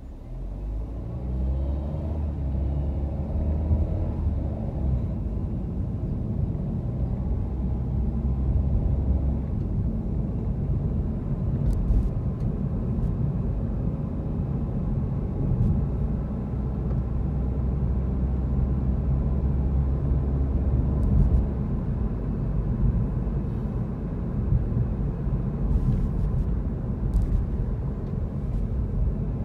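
Car moving off and driving through city traffic, heard from inside the cabin: a steady low engine and road rumble. The engine note rises over the first few seconds as the car accelerates.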